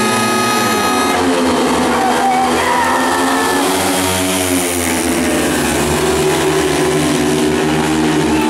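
Four 500 cc single-cylinder speedway motorcycles racing. The engines are held at steady high revs, then about a second in they rise and fall in pitch as the bikes pull away from the start and race into the turn.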